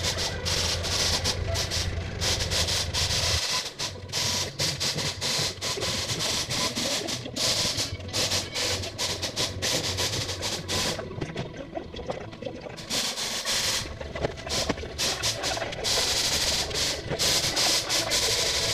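Wagner Flexio 2000 HVLP paint sprayer's turbine running with a hiss of air, its hum stopping about three and a half seconds in. After that comes a jumble of knocks and clatter, with the hiss coming and going.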